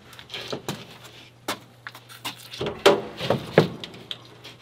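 A large sheet of OSB being handled and tipped on edge: a run of irregular wooden knocks, bumps and scrapes, with the loudest cluster of sharp knocks a little past halfway through.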